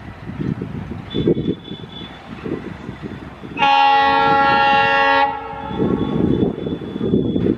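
Approaching passenger train's locomotive horn sounding one loud, steady blast of about a second and a half, starting about three and a half seconds in, over the rumble of the train running on the rails.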